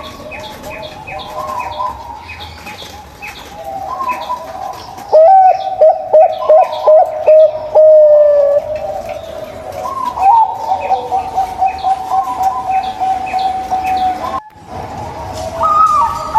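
Zebra doves (perkutut) cooing. About five seconds in comes a loud phrase of quick stuttering notes that runs into a long held coo, and from about ten seconds a rolling trill of rapid notes. Faint high chirping sounds under the first half.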